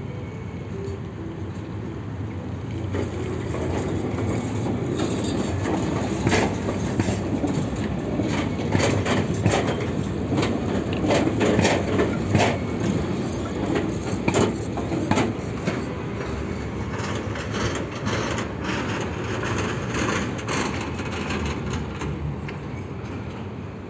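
Tram passing close by, its steel wheels clacking sharply over rail joints and junction crossings over a running rumble that swells and then eases off.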